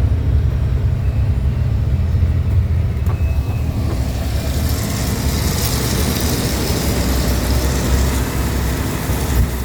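Dump truck's diesel engine running with a steady low rumble. About four seconds in, a steady high hiss joins it and carries on.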